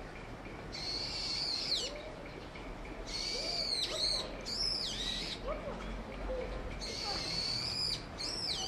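Repeated high-pitched animal calls: several loud, drawn-out cries, each held steady for up to about a second and then gliding downward.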